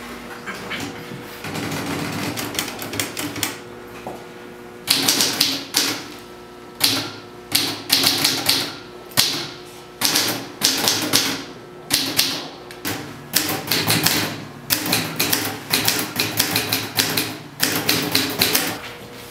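Two manual typewriters typed on at once: clattering key strikes in bursts, lighter for the first few seconds and then louder and denser from about five seconds in.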